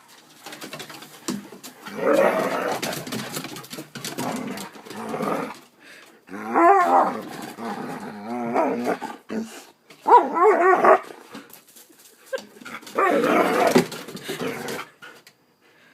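Dog growling in long rough stretches, broken by two wavering, pitched bark-like calls about seven and ten seconds in: a dog making mean-sounding noises, likely in rough play.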